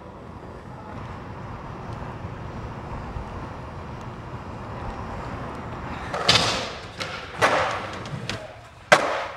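A low steady rumble, then about six seconds in a skateboard on concrete: four sharp clacks and thuds about a second apart, the last the sharpest.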